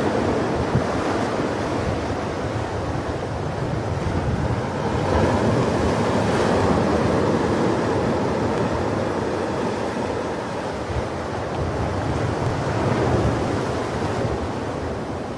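Ocean surf: a steady rush of waves washing onto a shore, swelling and easing slowly, louder around a third of the way in and again near the end.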